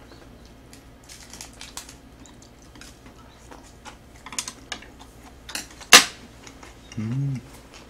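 Eating sounds: scattered light clicks and taps of chopsticks against the metal tray and dishes, with chewing, and one sharper click about six seconds in. A short hummed voice sound comes about a second before the end.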